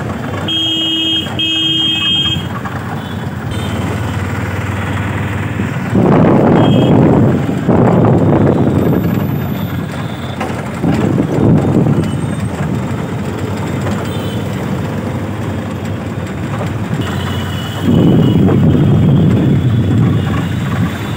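Traffic noise heard from inside an open-sided auto-rickshaw on the move: its engine and road noise running steadily, swelling louder several times. A vehicle horn honks twice about a second in, and a fainter horn sounds near the end.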